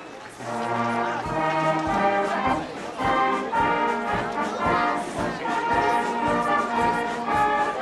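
Brass band playing, with a steady beat.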